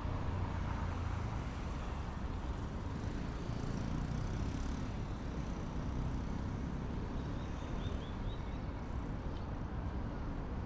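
Steady urban road-traffic noise, a continuous low rumble of passing cars, with a few faint high chirps about three quarters of the way through.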